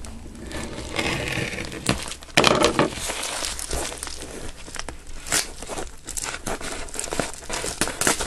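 Padded paper mailing envelope crinkling and rustling in the hands as it is handled and opened, in irregular bursts, the loudest about two and a half seconds in.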